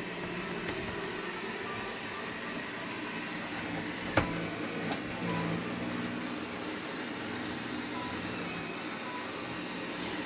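Xiaomi Mi robot vacuum running over a rug, a steady whir of its suction fan and brushes. A sharp knock about four seconds in and a lighter click shortly after.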